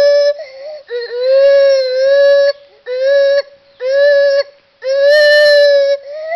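A gibbon calling in a run of about five long, human-like hoots, each held at a steady pitch and dipping at its end, with short breaks between them.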